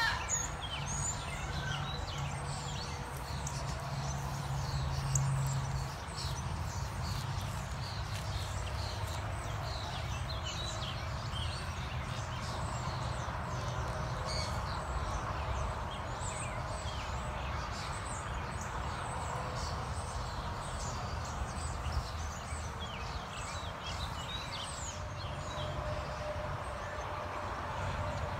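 Songbirds chirping and singing over and over, over a steady low rumble of outdoor background noise.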